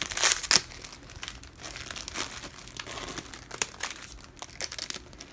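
A clear plastic packaging bag crackling and crinkling in the hands as it is pulled open and handled, loudest in the first half second.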